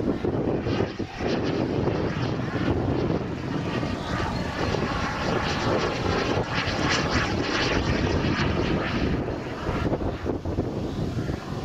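Radio-controlled model jet flying overhead: a steady rushing engine noise that swells and dips slightly as the plane passes.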